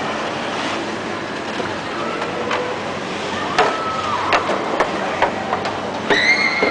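Steady background hiss of a large hall. A few sharp clicks fall in the middle, and a short vocal sound comes a little past halfway. A small child's high-pitched voice calls out near the end.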